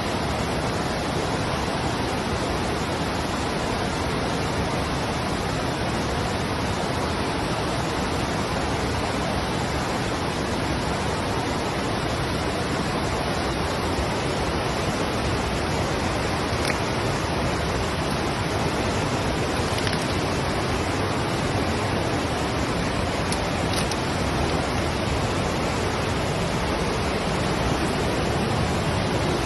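Steady rushing noise, even in level throughout, with a few faint ticks about two-thirds of the way through.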